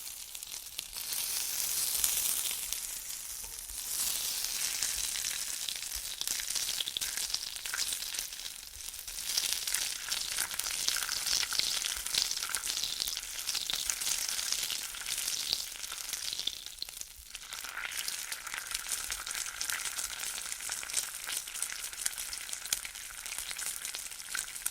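Bacon frying in a pan: a steady sizzling hiss full of fine crackles and pops, swelling and easing a few times.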